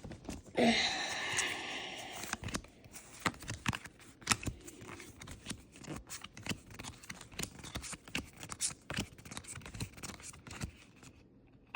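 Foil Pokémon booster-pack wrapper crinkling and tearing for about two seconds near the start, then a run of light scattered clicks and snaps as the trading cards are handled and flicked through.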